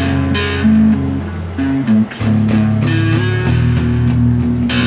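Electric guitar and bass guitar playing a heavy metal riff together in held, low notes, with a brief break about two seconds in.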